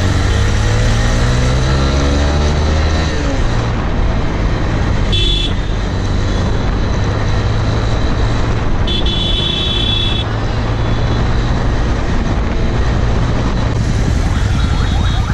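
Motorcycle engine pulling hard, its pitch rising over the first few seconds, with wind rush and traffic around it. A horn beeps briefly about five seconds in and again for longer around nine seconds in.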